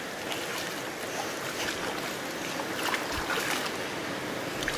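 Shallow river water flowing steadily in a continuous rushing hiss, with a few light splashes of hands working in the water.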